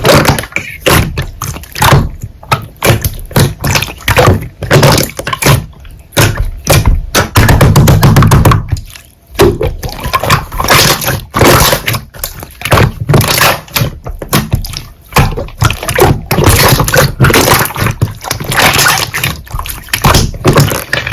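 Hands squishing and pressing slime: a dense, irregular run of sticky clicks and pops, with heavier squelches now and then.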